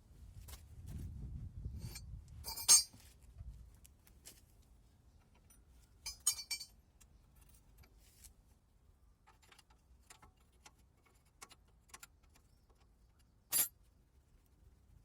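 Metal hand tools clinking and knocking during work on a car's front suspension: a sharp clink about three seconds in, a quick cluster of clinks near the middle, another sharp clink near the end, and lighter taps between.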